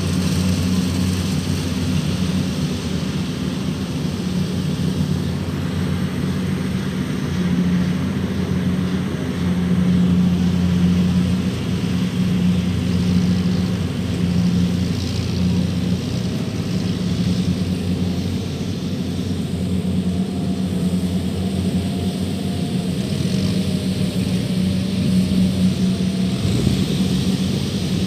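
Kubota DC-105X combine harvester's diesel engine running steadily: a continuous low drone that swells slightly a couple of times.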